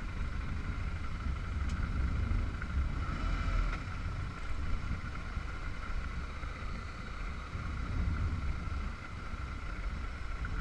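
Motorcycle running steadily while being ridden, with a continuous low rumble and a faint steady whine.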